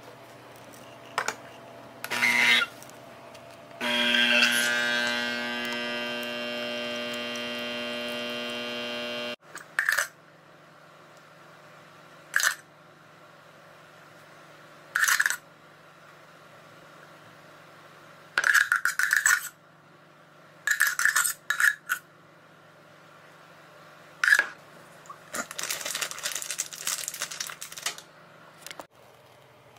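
An illy capsule coffee machine's pump runs with a steady hum for about five seconds, then cuts off. After that comes a run of short clinks and scrapes: a spoon knocking against a drinking glass and ice cubes while iced coffee is stirred.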